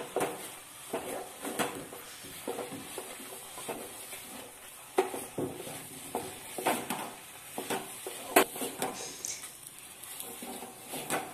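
A spoon stirring thick semolina (rava) paste in a metal pot as it cooks down over the heat, scraping and knocking against the pot in irregular strokes, with a sharp knock about eight seconds in.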